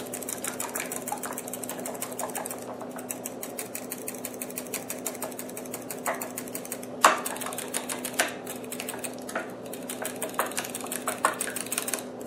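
A utensil beating an egg and cream mixture in a glass bowl: rapid, even clicking as it strikes the glass, with a few louder knocks about seven and eight seconds in.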